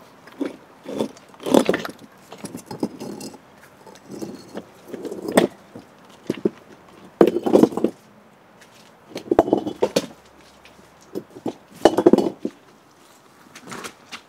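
Large rough stones being set down and shifted against one another: irregular heavy knocks, scrapes and sharp clacks of stone on stone, coming every second or two.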